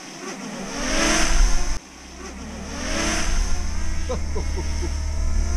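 DJI Mini 2 quadcopter drone flying close by, its propeller whine rising and falling in two swells, with an abrupt cut between them.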